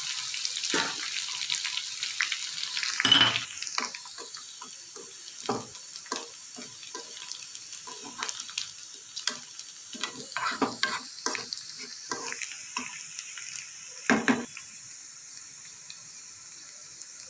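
Tempering of mustard seeds, cumin, crushed garlic and dried red chillies sizzling in hot oil, while a spoon clicks and taps against the pan as it is stirred. The sizzle is loudest in the first few seconds. There is a louder clatter about three seconds in and another near fourteen seconds, after which it settles to a fainter hiss.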